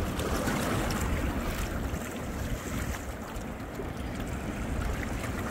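Steady wind noise buffeting the microphone, with choppy water splashing around a small boat.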